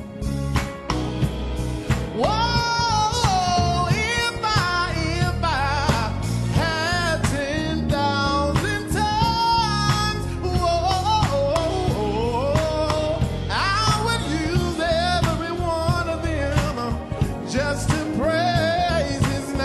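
Live gospel band music: a sliding, bending lead melody over electric bass, drums and keyboard.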